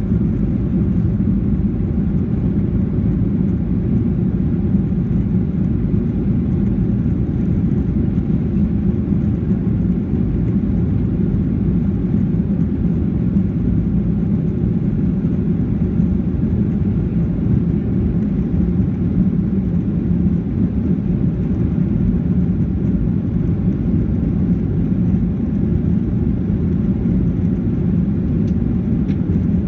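Cabin noise of a Boeing 737-800 at takeoff thrust: the CFM56 turbofan engines and airflow make a steady, loud, low-pitched noise heard from inside the cabin through liftoff and the initial climb.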